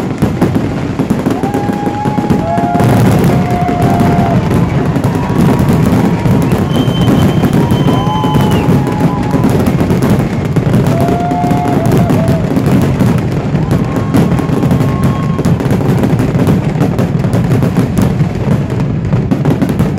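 Fireworks finale: a continuous barrage of aerial shells bursting and crackling with no gaps. A few short steady tones sound over it now and then.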